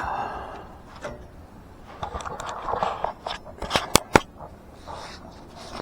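Hands working at parts and tools under a car: rustling and scraping, with a few sharp clicks about four seconds in.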